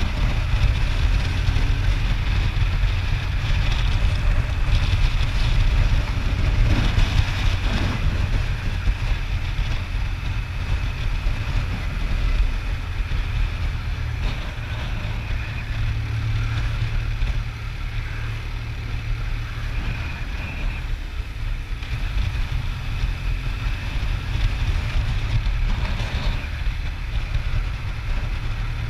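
Motorcycle riding at a steady cruising speed: engine and road noise, with wind buffeting the microphone, low-pitched and steady, easing off slightly in the second half.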